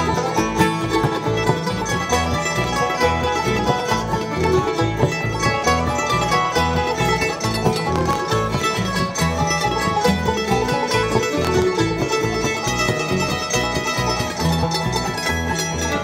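Bluegrass band playing an instrumental break, with fast banjo picking over guitar accompaniment.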